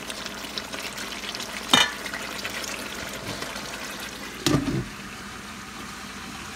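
Chicken pieces simmering in their liquid in a stainless steel pot, a steady bubbling sizzle, with a wooden spoon knocking sharply on the pot about two seconds in. A glass lid is set on the pot with a short clatter about four and a half seconds in, and the simmering goes on more faintly under the lid.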